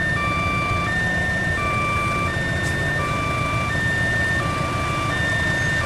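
Electronic two-tone railway warning alarm, a higher and a lower tone taking turns about every 0.7 s, over the steady low rumble of an approaching diesel locomotive.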